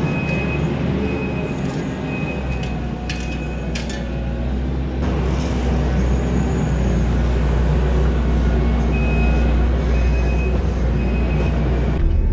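Kubota SVL90-2 compact track loader's diesel engine running steadily as it works a Harley power rake through topsoil, with a few sharp clicks. The engine drone deepens and grows louder about five seconds in.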